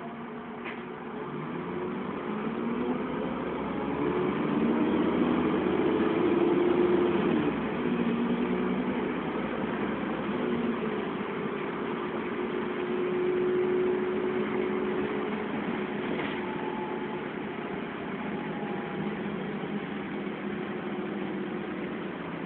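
Dennis Trident double-decker bus heard from inside the saloon, its diesel engine pulling away and rising in pitch as it accelerates. The pitch drops at a gear change about seven seconds in, rises again, then holds at a steady cruise and eases off near the end.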